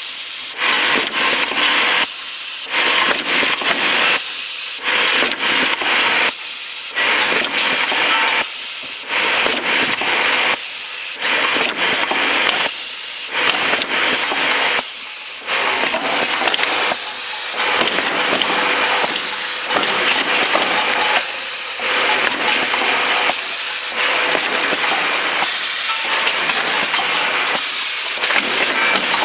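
Pneumatic bottle filling and capping machine running: a steady hiss of compressed air with mechanical clatter, breaking off briefly about every two seconds in a regular working cycle.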